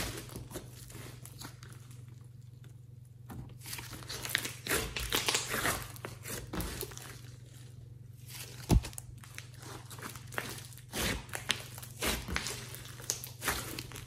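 Hands squishing, stretching and poking a thick red slime mixed with clay, giving irregular sticky crackles and pops, with one sharper pop about nine seconds in. A faint steady low hum lies underneath.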